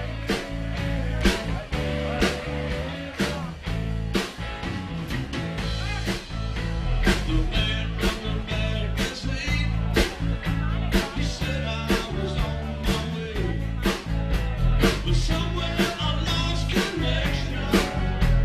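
Live rock band playing: electric guitar, electric bass and a Tama drum kit, with the drums keeping a steady beat.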